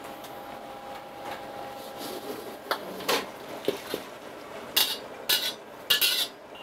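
Steel ladle knocking and scraping in a wok of boiling mushrooms. The wok is then tipped to drain the water off, with three loud bursts of clatter and splashing in the last couple of seconds.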